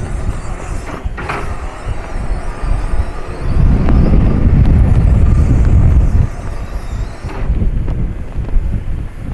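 Wind buffeting the microphone, a gusty low rumble that swells loudest for a couple of seconds midway through.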